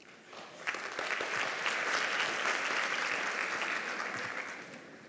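Audience applauding in a hall, starting about half a second in, holding steady, then fading away near the end.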